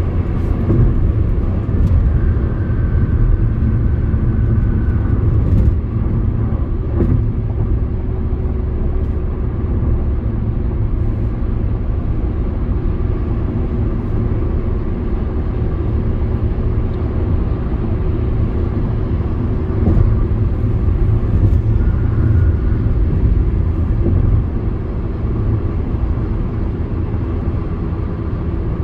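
Steady road and engine noise of a car driving on the highway, heard from inside the cabin: a low, even rumble that holds throughout.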